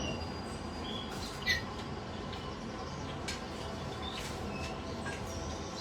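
Pet parrots in a flock giving short, soft chirps now and then over steady room noise.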